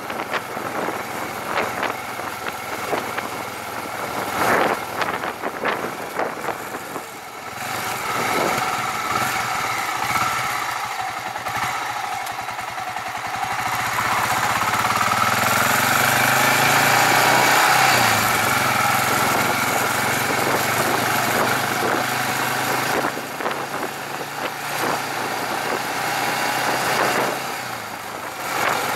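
Motorcycle engine running under way, with wind gusting on the bike-mounted microphone. The engine note climbs around the middle as the bike accelerates, then holds steady.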